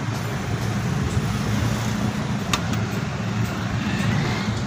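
Steady low hum and background noise, with one sharp click about two and a half seconds in.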